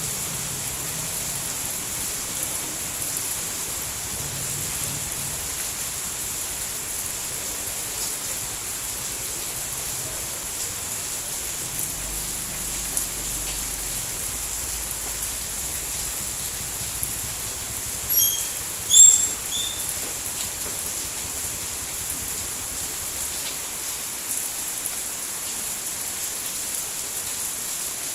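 Steady rain falling, an even hiss. A few short high-pitched chirps break through about two-thirds of the way in.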